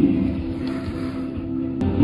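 Background music with sustained low tones, and a brief click near the end.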